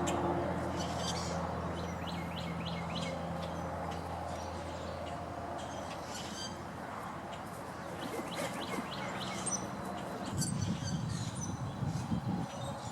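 Small songbirds chirping and trilling repeatedly, over a low steady hum that fades out about five seconds in; from about ten seconds in, an irregular low rumbling joins them.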